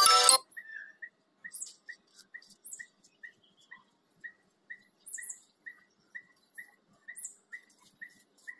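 Background music cuts off just after the start. Then a bird calls one short whistled note over and over, about two to three times a second, with occasional very high chirps from other birds.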